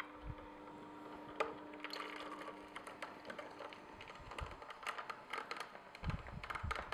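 Frozen berries clicking and crackling as they are spooned in and crushed by the slow-turning auger of a Sana EUJ-707 juicer making sorbet. The irregular clicks grow thicker in the second half, with a few dull thumps near the end.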